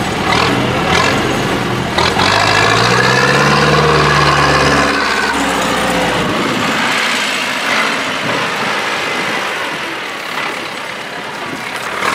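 Zetor tractor's diesel engine revving hard, its pitch climbing for a few seconds, then dropping away. In the second half it runs much quieter.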